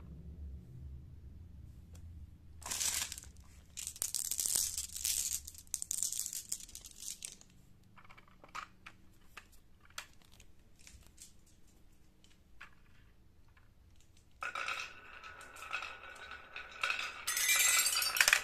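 Marbles clicking and rolling down a wooden zigzag marble run, then clinking onto the bars of a toy xylophone, which ring with pitched notes, louder near the end. Before that, scattered clicks and rustling noise as the toys are handled.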